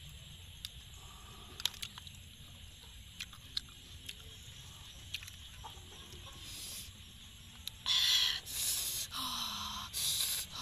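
A few faint clicks of snail shells and a toothpick, then several loud, hissing breaths drawn and blown through an open mouth, a reaction to hot chili sauce.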